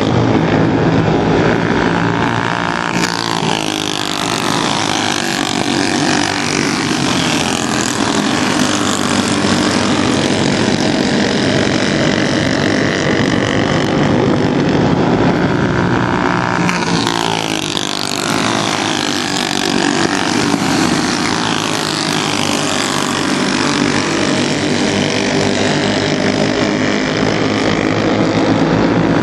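Racing engines of a field running laps on a race track, a steady mass of engine noise. The pitch sweeps as the field goes past, about three seconds in and again about seventeen seconds in.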